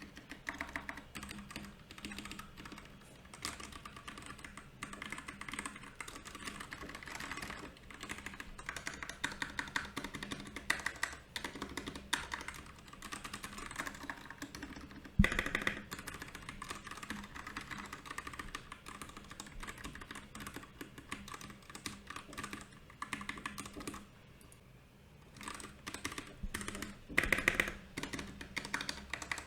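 Fast, continuous typing on a Royal Kludge RK68 mechanical keyboard: a dense, irregular stream of key clicks. There is one louder clack about halfway through and a short pause a few seconds before the end, after which the typing picks up again.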